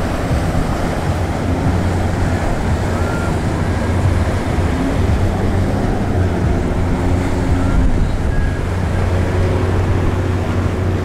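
Steady low engine drone of a cruise ship under way, with an even wash of water and wind noise over it.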